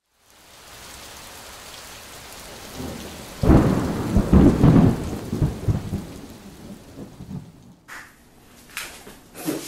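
Steady rain, then about three and a half seconds in a loud roll of thunder that rumbles and fades over some four seconds. Near the end the sound cuts to quieter room sound with a few clicks.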